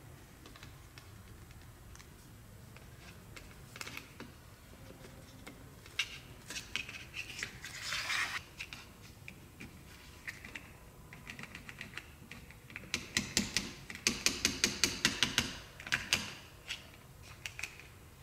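Plastic fashion dolls handled and posed by hand: scattered light plastic clicks and taps, a short rustle about eight seconds in, and a quick run of loud clicks, about five a second, between roughly thirteen and sixteen seconds.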